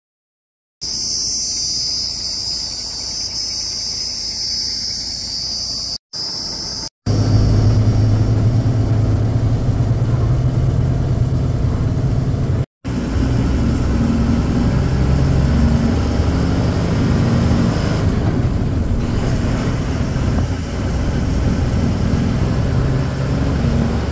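Insects calling loudly and steadily for the first few seconds, then, after a brief cut, the lorry's diesel engine running steadily as the truck drives along the road. The sound drops out briefly twice at the cuts.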